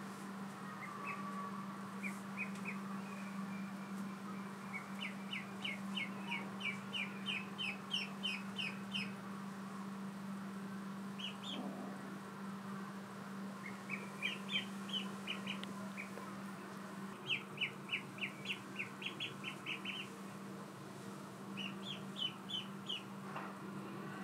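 Ducklings peeping: quick runs of short, high peeps in several bouts, over a steady low hum.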